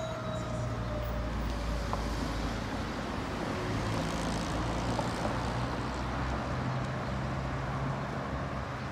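Street traffic: a steady low rumble of vehicle engines and road noise, with a faint tone that slowly falls and fades out about two seconds in.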